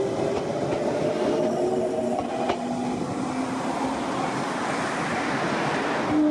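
Electric train on the Fukushima Kotsu Iizaka Line running past close by: a steady rush of wheel and running noise, with a few faint tones sliding lower in pitch.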